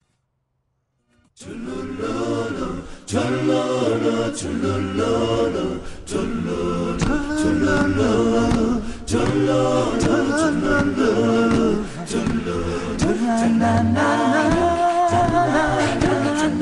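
Background music: an a cappella vocal group singing in harmony, starting about a second in.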